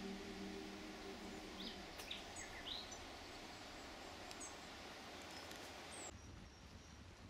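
Faint outdoor ambience: a steady, even hiss with a few short bird chirps about two seconds in, while the tail of background music fades out in the first second or so. The hiss cuts off abruptly about six seconds in.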